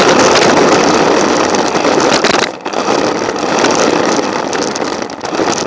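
Toy remote-control car driving, its motor and drivetrain whirring with rolling and rattle noise picked up by a camera taped onto the car. The sound dips briefly about two and a half seconds in, then picks up again.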